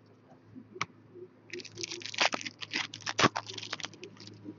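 A trading-card pack wrapper being torn open and crinkled by hand. After a single click, a run of crackling rustles with sharp snaps starts about a second and a half in.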